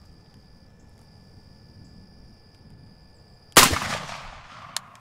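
A single shotgun shot about three and a half seconds in, firing a Winchester Expert No. 2 steel shot load; the report is loud and fades over about a second. A short sharp click follows a little over a second later.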